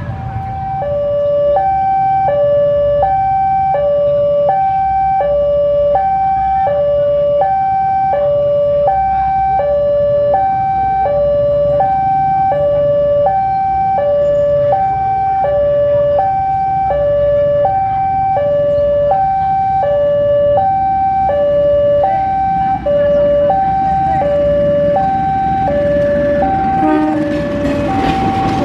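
Railway level-crossing warning alarm sounding: an electronic two-tone signal alternating steadily between a higher and a lower note, about one pair a second, over a low rumble.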